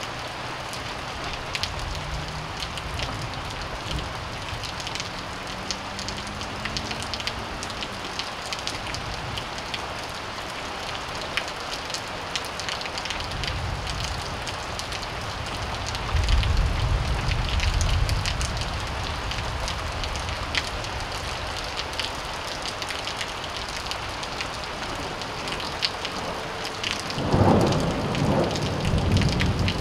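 Steady rain falling, with thunder rolling over it: low rumbles in the first several seconds, a louder, long rumble in the middle, and a sharper, closer clap about two seconds before the end.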